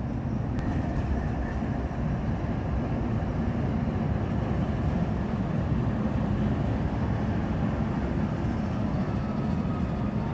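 Diesel-electric freight locomotives rolling slowly across a steel truss railroad bridge: a steady low rumble of engines and wheels.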